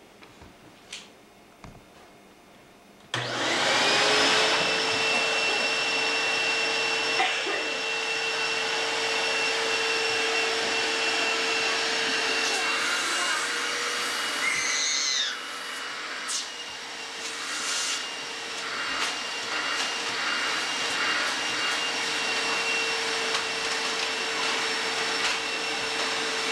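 A vacuum cleaner is switched on about three seconds in. Its motor spins up to a steady whine over a rush of air and keeps running. The level dips a little about halfway through.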